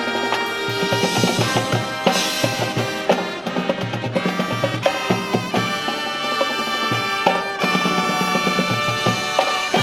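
Marching band playing: a brass section sounding sustained chords and melody over marching drums that keep a steady beat.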